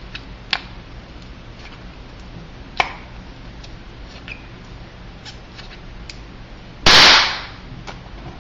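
A balloon giving a single loud, sharp bang about seven seconds in, after a few small clicks.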